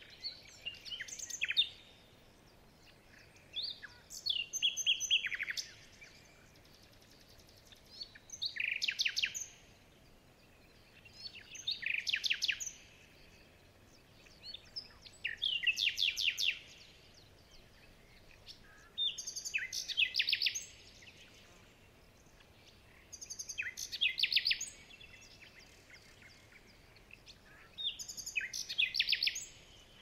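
A songbird singing the same short, fast trilled phrase over and over, about every four seconds, eight times in all, over a faint steady hiss.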